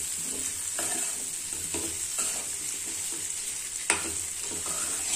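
Steel ladle stirring and scraping lotus stem slices frying in oily masala in a kadai, in repeated strokes over a steady sizzle, with one sharp clink about four seconds in.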